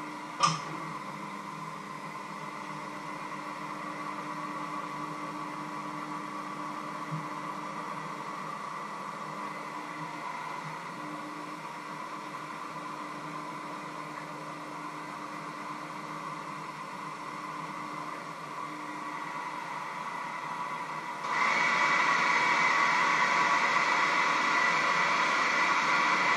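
Electric hand mixer running with its beaters in a bowl, a steady motor whirr with a sharp click about half a second in. About 21 seconds in it gets clearly louder and brighter, then stops at the end.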